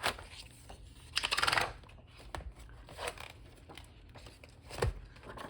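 Paper pages being pulled off the discs of a discbound planner: a short rasping rip about a second in, then light paper rustles and clicks, and a soft thump near the end.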